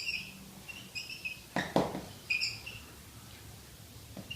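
A small bird chirping in short, repeated high chirps, with two sharp clicks close together a little before the middle.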